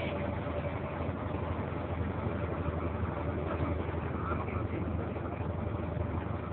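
A passenger boat's engine running steadily under way, a constant low drone heard from on board.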